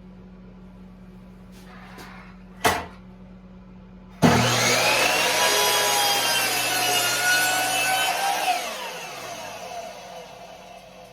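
Electric power saw switched on, cutting through a small piece of wood for about four seconds, then its blade winding down with a falling whine. A sharp knock comes shortly before the saw starts.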